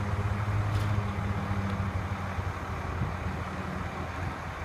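Boom crane truck's diesel engine running steadily while the crane lifts a load, a little louder for the first couple of seconds and then easing off.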